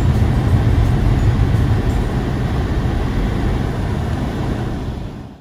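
Steady rumble and hiss of a car on the road, fading out near the end.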